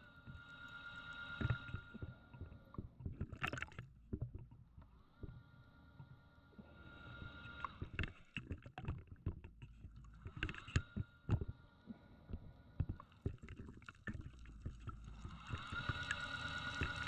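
Scuba diver breathing through a regulator, heard underwater: each breath drawn in with a steady whistling tone, then exhaled as rumbling, clicking bubbles, repeating about every five seconds.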